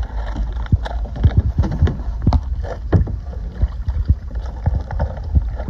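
Irregular knocks and bumps of a kayak and paddle over a low rumble of wind on the microphone.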